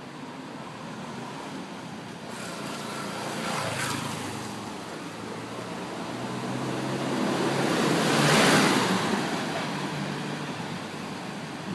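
Cars passing along the street: one goes by about four seconds in, and a second, louder one swells and fades just past the middle, over a steady background of traffic hum.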